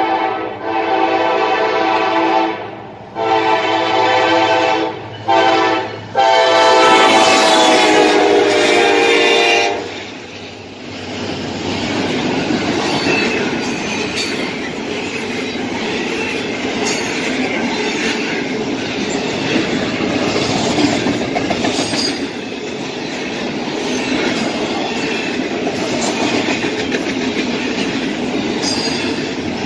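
Locomotive air horn blowing the long-long-short-long grade-crossing signal, the last blast held longest, then the train rolling past with steady wheel-on-rail rumble, clickety-clack and faint wheel squeal.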